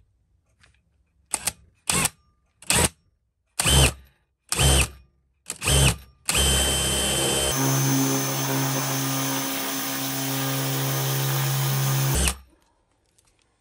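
Cordless drill with a 3/16-inch bit drilling out the rivets of a binder's ring mechanism: six short pulls of the trigger, then the motor runs steadily for about six seconds before stopping.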